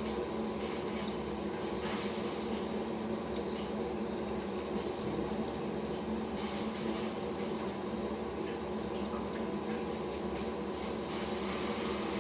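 Turtle tank's water filter running: a steady motor hum under a constant sound of moving water, with a few faint ticks.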